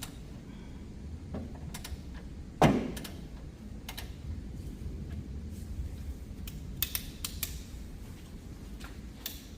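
Metallic clicks and clinks from a ratchet and socket working on the threadlocked caliper bracket bolts of a BMW X5's rear brake, with one sharp knock a little under three seconds in.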